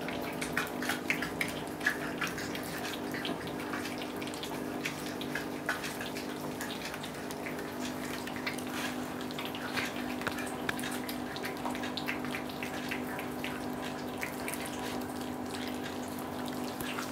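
Small dogs and a cat chewing and gnawing raw oxtail bones: wet, irregular clicking throughout, over a steady low hum.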